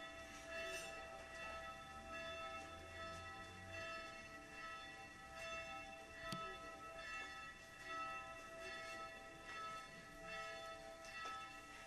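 Church bells ringing: a steady peal of overlapping, sustained tones that swells about once a second, with a single sharp click about six seconds in.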